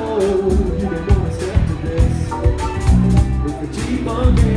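Live band playing a song: a steady drum beat with electric bass guitar under a man singing lead into a microphone.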